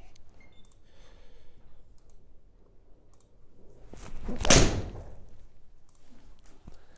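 A single full-swing golf shot with a Srixon ZX hollow-bodied driving iron. The swing's whoosh builds, then the club strikes the ball off a hitting mat about four and a half seconds in. The impact is the one sharp, loud event, and it rings briefly in a small room.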